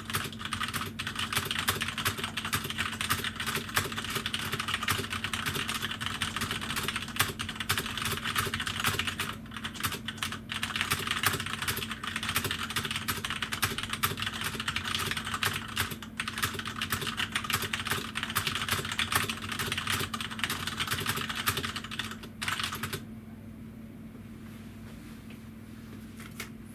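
Fast, continuous typing on a Corsair K65 mechanical keyboard with Cherry MX Red linear switches: a dense stream of key clacks that stops about 23 seconds in. A faint steady hum remains under it and after it.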